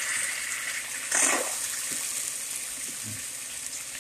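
Ketchup squeezed from a squeeze bottle into a hot pan: a steady sizzling hiss that slowly fades, with a short louder sputtering squirt about a second in.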